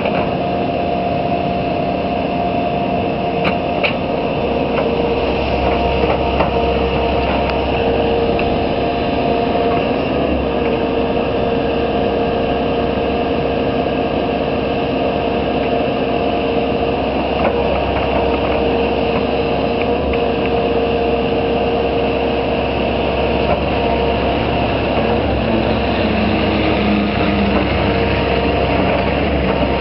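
Hitachi Zaxis 160LC excavator's diesel engine running steadily under load as the machine works its boom and bucket to level soil, with a couple of short knocks about four seconds in.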